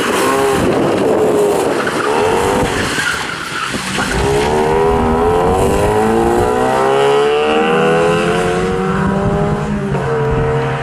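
Opel Astra GSI rally car's engine revving hard, its pitch climbing for several seconds under full acceleration and changing near the end, while its tyres squeal and skid through the corners.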